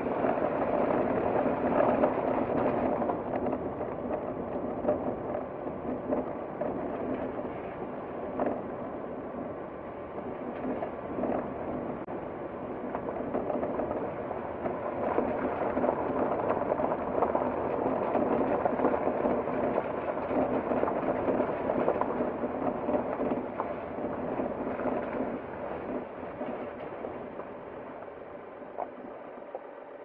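Vehicle driving along a gravel road: tyres crackling and crunching over loose gravel with a steady rumble. It dies down over the last few seconds as the vehicle slows.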